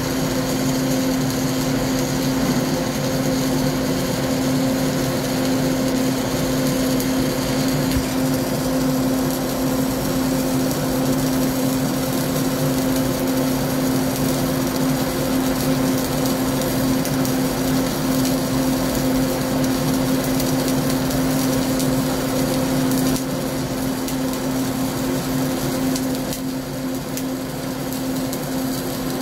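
Flux-cored arc welding with CO2 shielding gas on a vertical (3G) joint: a continuous, steady arc crackle over a constant buzzing hum, easing slightly in level in the last few seconds.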